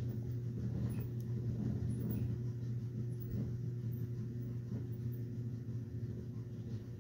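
A steady low hum with faint room noise, unchanging throughout, and no other distinct sound.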